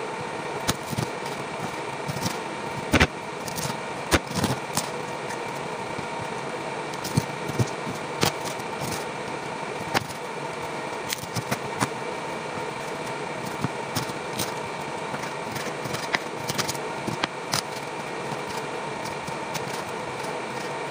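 A kitchen knife cutting raw chicken on a cutting board, with irregular sharp taps and knocks as the blade meets the board. Underneath is a steady machine hum.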